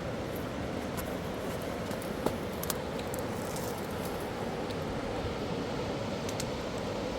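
Steady rush of a mountain river, with two sharp clicks a little over two seconds in.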